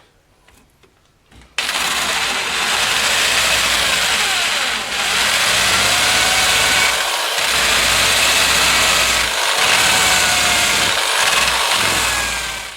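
Loud steady machine noise that starts abruptly about a second and a half in and cuts off suddenly at the end.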